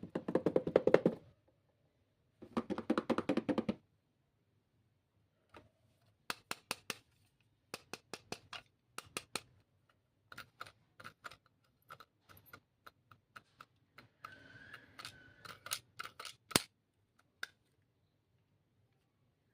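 Plastic stationery items and packaging being handled on a table: two short bursts of rapid rattling clicks, then a long run of separate sharp clicks and taps.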